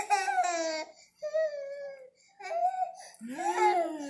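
Five-month-old baby crying in four short bursts, most falling in pitch at the end, fussing while a nightgown is pulled onto him.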